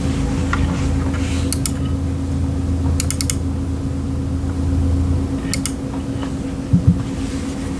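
Steady background hum with a few sharp clicks scattered through it: a pair about one and a half seconds in, a quick run of four about three seconds in, another pair a little later, then two low thumps near the end.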